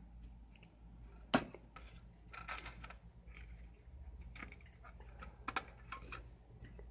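Scattered clicks and clatter of hard metal and plastic parts being handled as a hashing board is worked out of an Antminer S2 bitcoin miner's case, with one sharp knock about a second and a half in, over a low steady hum.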